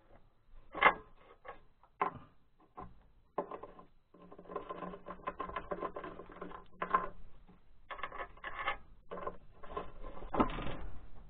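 Hand work on metal mounting hardware at the base of an engine: irregular clicks, knocks and scraping as parts are shifted and fitted on the mounting plate. There is a sharp knock about a second in and denser clattering in the middle.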